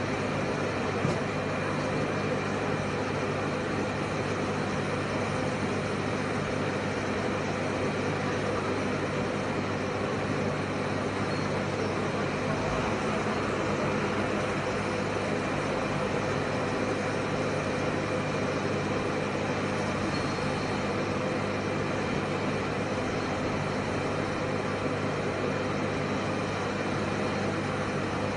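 Steady engine and machinery noise from the cargo plane's loading ramp, where a diesel forklift is working. It is a constant drone with several steady humming tones and no change in level.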